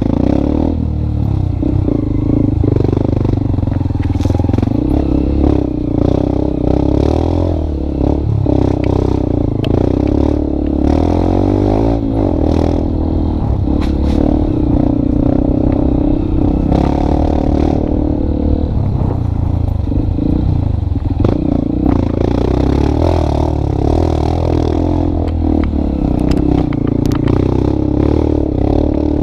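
A vehicle engine running steadily, likely a motorcycle, its pitch drifting up and down a little, with frequent rattles and clatter throughout.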